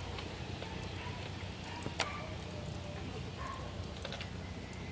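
Wood campfire crackling, with scattered small pops and one sharper crack about two seconds in.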